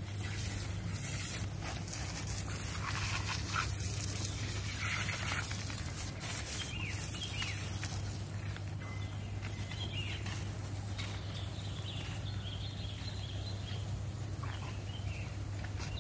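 Outdoor ambience: scattered short animal calls over a steady low hum and a constant high hiss.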